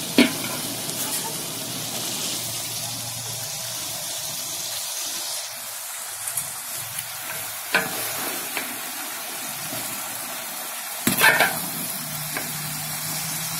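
Chicken keema and green peas sizzling in an aluminium pot while a steel spoon stirs them, with a few sharp knocks of the spoon on the pot, the loudest near the end.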